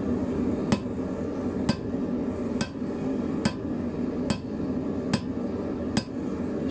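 Hand-hammer blows on a red-hot 10 mm round steel bar laid on a hot-cut tool at the anvil, cutting the bar to length: seven evenly spaced strikes, about one a second, over a steady background hum.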